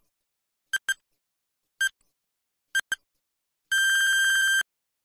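Electronic countdown timer sound effect: short high beeps about once a second, some doubled, then one long steady beep of about a second as the count reaches zero.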